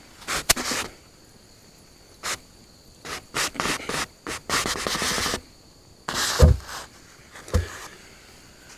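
A pressure-treated wooden fence post being set down into a post hole dug in clay: irregular scraping and rubbing as the post is worked in against the hole, then two dull thumps near the end.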